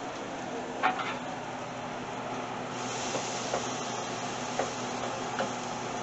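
Butter melting in a hot pan on the stove, with a soft sizzling hiss that comes in about three seconds in. Under it runs a steady hum, and a few light clicks are heard.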